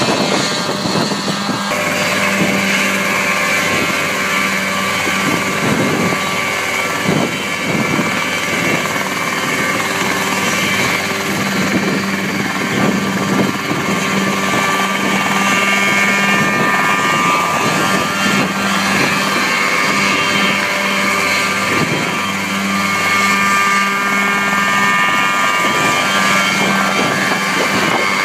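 Mosquito ultralight helicopter hovering close by, its two-stroke engine and rotor running steadily at flight power. The sound shifts abruptly about two seconds in as one clip gives way to another.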